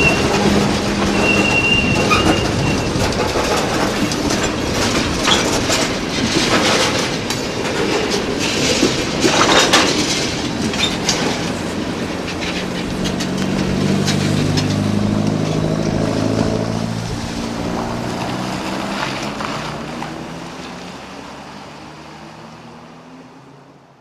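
Freight train tank cars rolling slowly over street-running track. Wheel flanges squeal briefly near the start, then the cars clank and rattle over the rail joints. As the train noise dies away, a car engine passes by, and everything fades out at the end.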